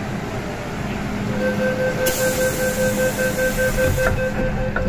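An MTR M-train's door-closing warning, rapid beeping at two pitches, starts about a second and a half in and runs almost to the end. A hiss sounds from about two seconds in, and the doors knock shut about four seconds in, over the train's steady background noise.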